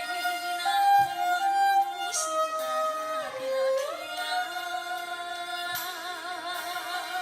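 Violin and flute duet playing a slow melody in held notes with vibrato, with a sliding change of pitch about halfway through.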